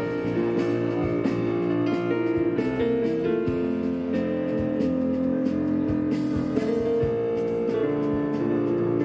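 A small band playing an instrumental piece live: piano on a stage keyboard, electric bass, drum kit and saxophone, with long held notes over light, frequent drum strikes.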